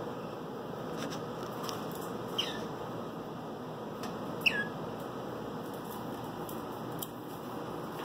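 Waterslager canary giving two short chirps, each sliding down in pitch, about two seconds apart, over a steady background hiss.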